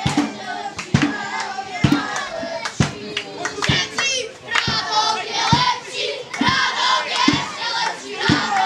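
Football supporters chanting and shouting together, many voices at once, over a steady thump that comes about once a second.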